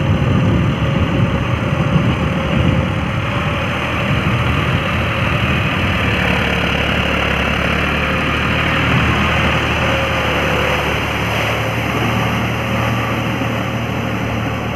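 John Deere 5310 tractor's three-cylinder diesel engine running steadily under load as it pulls an implement through a flooded paddy field, puddling the mud. The hum grows slightly quieter near the end as the tractor moves away.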